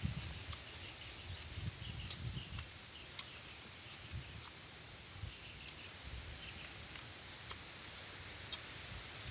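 Faint forest ambience: short, scattered bird chirps and little rising calls, with sharp clicks here and there and soft low rumbles.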